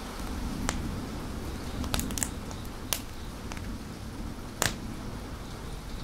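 Fire crackling with about six sharp pops, the loudest about three-quarters of the way through, over a steady hiss of rain.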